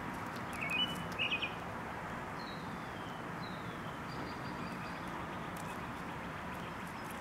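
Birds chirping a few times outdoors: a short cluster of chirps about a second in, then a couple of thin falling whistles a little later, over a steady background hiss.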